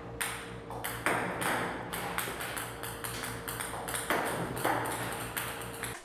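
Plastic ping-pong balls fired by a table tennis robot, ticking and bouncing on the table and net in a quick irregular run of sharp clicks, a few a second, over a steady hum.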